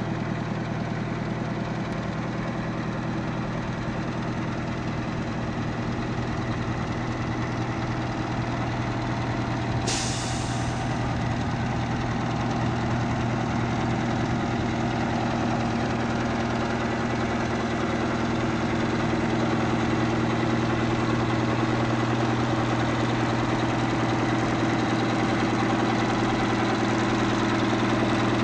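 The 8V92T Detroit Diesel two-stroke V8 of a 1995 E-One Titan 4x4 crash truck idling steadily, slowly growing a little louder. About ten seconds in comes a brief hiss of air released from the truck's air brake system.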